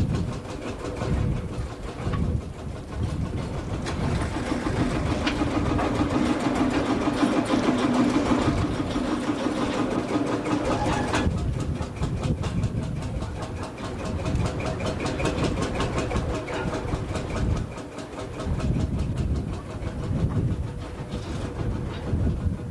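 Fowell steam traction engine running, its exhaust and motion making a quick, even, rhythmic beat; it is louder, with a steady hum under the beat, for several seconds around the middle.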